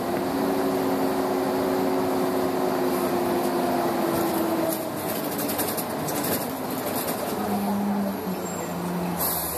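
Cummins L10 diesel engine of a Volvo Olympian double-decker bus heard inside the cabin while driving. Its note drops at the very start, holds steady under power, then eases off about halfway through as the bus slows for a stop, with a lower steady hum coming in near the end.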